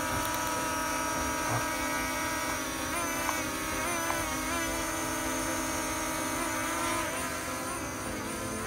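Deer Pro 3 quadcopter drone flying low, its motors and propellers giving a steady whine of several tones at once. The pitch wavers a few times in the middle as the motors change speed.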